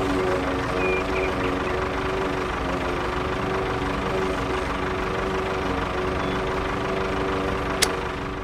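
Small electric motor of a DIY miniature toy tractor running steadily with a constant whining hum. A single sharp click comes near the end.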